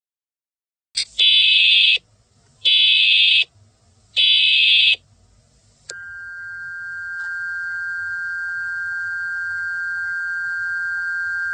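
Emergency Alert System tones: three short bursts of high-pitched digital header data, then the steady two-tone attention signal starting about six seconds in, which announces that an emergency message follows.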